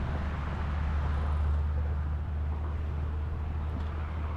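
Road traffic on the bridge overhead, a steady low rumble.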